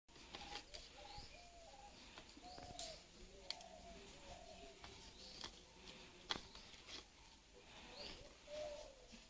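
Faint birds calling: a string of short, low, repeated calls, with a few higher rising chirps over them and several sharp clicks in between.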